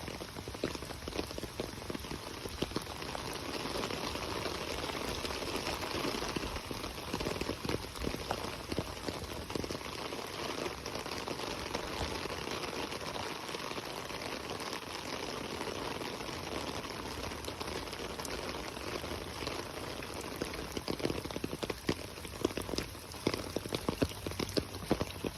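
Steady rain falling, with many individual drops ticking close by; the drops get louder and thicker in the last few seconds.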